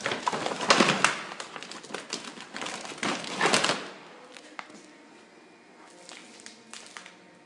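Packaging rustling and crinkling as a wrapped pack is pulled out of a cardboard case, with loud scraping rustles for the first few seconds, then only a few light clicks.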